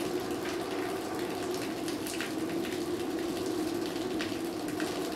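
Dark ambient drone of a horror soundtrack: a steady low hum under a soft hiss, with scattered faint clicks.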